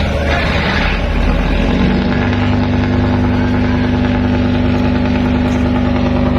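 Boat engine running during docking, rising in pitch about two seconds in and then holding steady.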